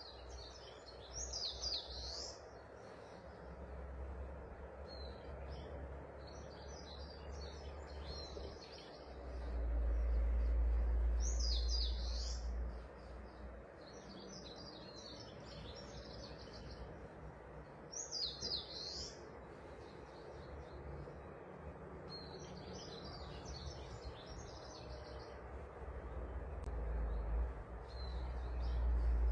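A songbird singing short phrases of quick high notes, each with a sharp sweeping note, repeated every few seconds over a steady background hiss. A low rumble swells about nine seconds in and again near the end.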